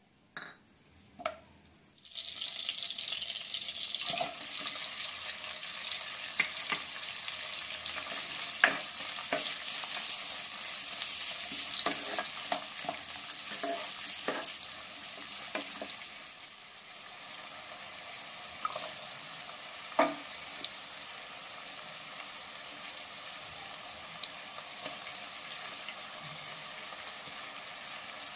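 Sliced onions frying in hot oil in a non-stick wok: the sizzle starts suddenly about two seconds in as they hit the oil. A spatula stirs them, with scattered scrapes and taps. The sizzle eases a little past the middle and carries on more quietly.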